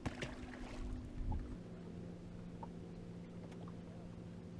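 Steady hum of a boat motor that shifts down to a lower pitch about a second and a half in, with a sharp click at the start and a few light knocks.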